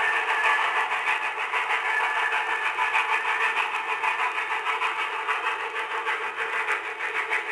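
Freight train hauled by Nickel Plate Road steam locomotive 765 passing close by, with a continuous rattle and clatter of its cars over the rails. The old recording sounds thin, with little bass.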